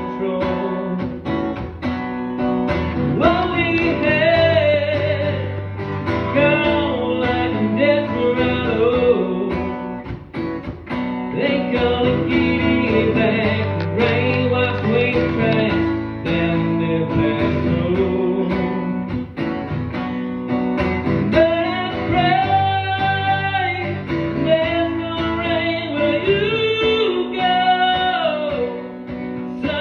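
Live solo performance: a man singing at a microphone while strumming his acoustic guitar, a slow ballad.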